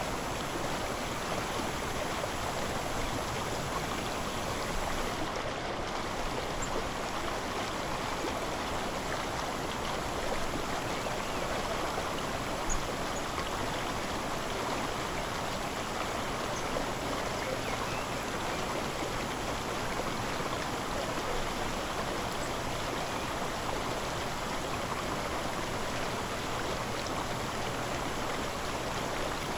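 A steady rushing noise of flowing water.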